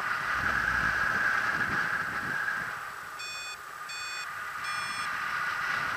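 Paragliding variometer beeping three times in quick succession about halfway through, short evenly spaced beeps that signal rising air. Under the beeps is a steady rush of wind on the microphone, strongest at first.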